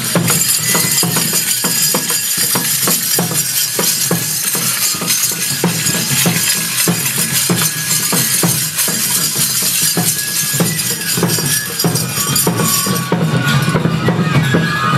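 Hachinohe Enburi festival music: the metal jingles on the dancers' jangi staffs rattle and clash in a steady rhythm over drumming, with a few held flute notes.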